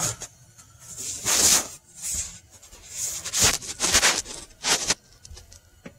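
A string of short rubbing, scuffing noises as a hand twists a spin-on oil filter the last few turns off its mount.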